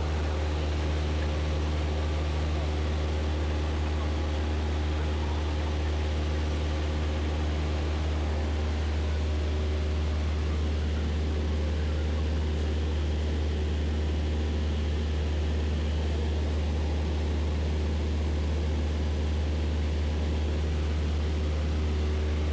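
Single-engine light airplane's piston engine and propeller running steadily in flight, heard from inside the cabin as a constant low drone.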